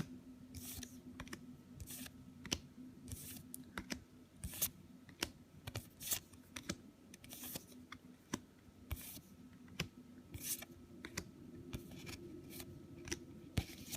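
Trading cards being handled: irregular sharp clicks and short swishes of card stock sliding and tapping, about one or two a second.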